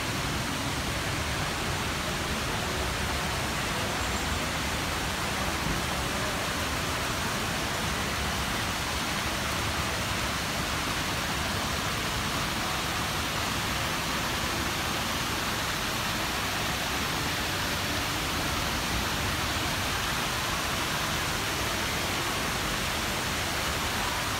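Tiered stone fountain: water cascading down stepped terraces and thin jets arcing into shallow pools, making a steady splashing.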